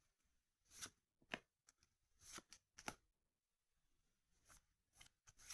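Pokémon trading cards being handled and slid over one another: a series of short, faint paper-scraping swishes at irregular intervals.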